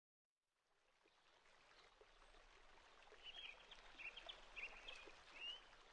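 Faint outdoor nature ambience fading in after a second of silence: a soft hiss with short, high bird chirps from about three seconds in.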